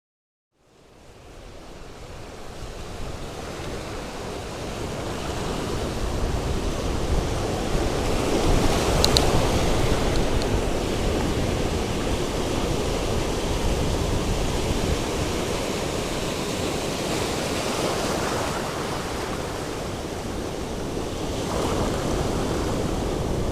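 Ocean surf and wind: a steady rushing noise that fades in after about a second of silence and swells over the first few seconds.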